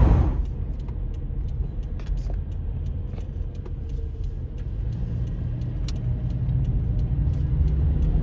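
Low, steady road and engine rumble inside the cabin of a moving Subaru, growing somewhat louder about five seconds in.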